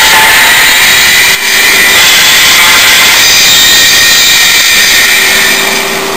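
Drum-heavy music playing from a tape on an old Sony solid-state tape player, heard through its built-in speaker, loud and harsh with heavy distortion, with a brief break about a second and a half in.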